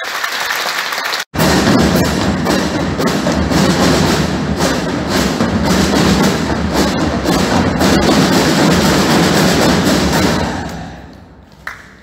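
Audience applause that breaks off about a second in. Then loud folk dance music with heavy drumming, which fades down near the end.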